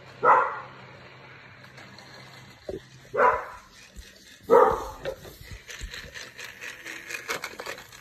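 A dog barking three times: once right at the start, then twice more about three and four and a half seconds in. After the barks comes a run of light clicks and rattles as a plastic toy train engine is handled.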